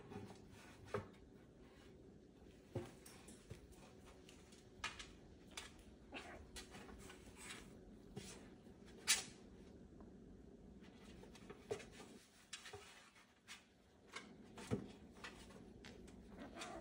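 Faint scuffling of two kittens play-fighting on a chair seat: scattered soft taps and rustles of paws and bodies, with one sharper tap about nine seconds in.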